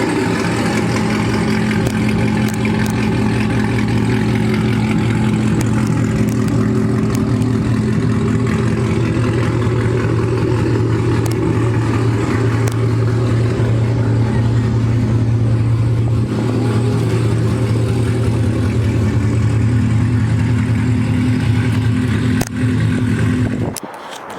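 Chevrolet Camaro ZL1's supercharged 6.2-litre V8 running at a steady cruise, a constant drone that holds its pitch and cuts off abruptly near the end.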